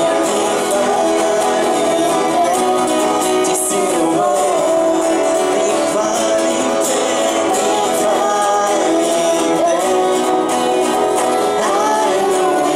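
A live band playing a Christian worship song: acoustic guitars and violin, with a woman singing the melody.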